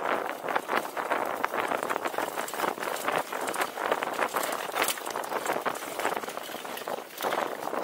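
Mountain bike riding fast over a dry dirt and gravel trail: the tyres crunch over stones and ruts and the bike rattles with a constant run of irregular clicks and knocks.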